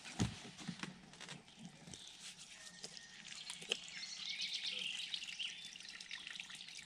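A few light knocks as the tap is worked, then water trickling from the spigot of a plastic water jug over cupped hands, growing louder about halfway through.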